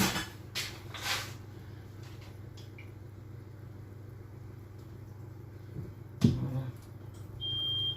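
An electronic appliance beep near the end: one steady high tone lasting about half a second, from the oven's control panel. A knock sounds about six seconds in, over a steady low hum.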